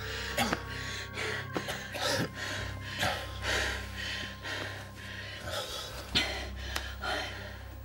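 Rapid, heavy human breathing in distress, about two breaths a second, over a low steady drone.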